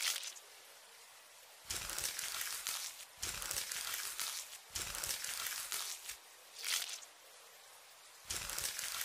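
ASMR foley sound effects for a cartoon of bugs being scraped out of a wound: a series of crackly, crinkling bursts, each about a second or more long with short pauses between. They start about two seconds in, and there are about five of them.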